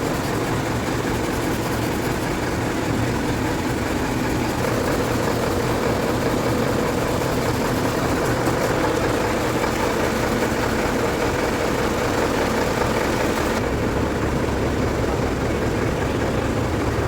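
An engine running steadily at idle-like speed, with a broad hiss over it that loses its highest part near the end.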